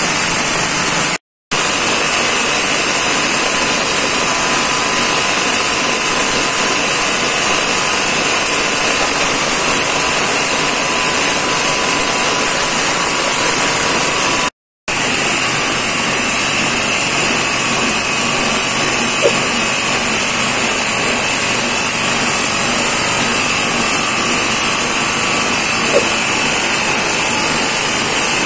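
Mini clam-shell grinding machine driven by a 5.5 hp petrol engine, running steadily as a loud, even noise while shells are fed in and crushed to powder. The noise breaks off briefly twice.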